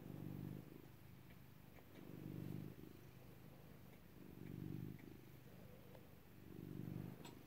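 Domestic cat purring, a low rumble that swells and eases back in an even rhythm about every two seconds as it breathes in and out.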